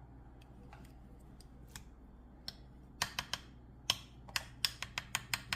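Sharp, short clicks and taps, a few scattered at first, then a quick irregular run of them, roughly three a second, from about three seconds in.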